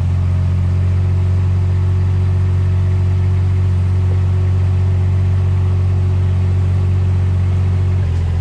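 Vehicle engine running steadily at low speed, a loud, even low hum.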